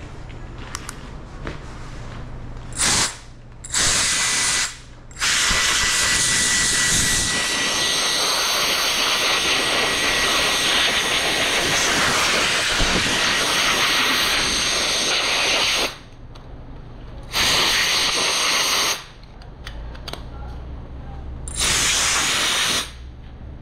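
Loud hissing rush, like a jet of pressurized air, switched on and off several times: two short bursts a few seconds in, a long stretch of about ten seconds, then two shorter bursts near the end.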